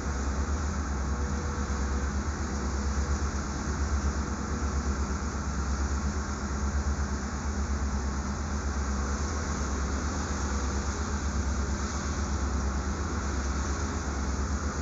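A boat's diesel engine running steadily: a low drone with a fast, even pulse, over a constant rush of water and wind.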